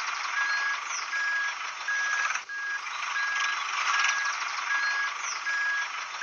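An electronic beeper sounding one steady beep about every three-quarters of a second, like a reversing alarm, over a dense, steady hiss.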